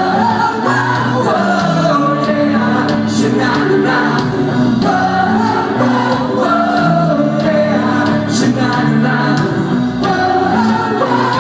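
Live rock band playing at full volume, with electric guitars and drums and singing over the top, heard from the crowd in a large hall.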